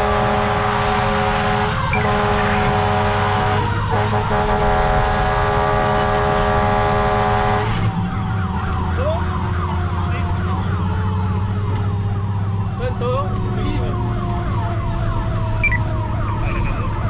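Fire engine running under emergency warning. A steady horn-like blare is held for about the first eight seconds, broken twice briefly. Then a fainter siren glides slowly up and down, all over the engine's low drone.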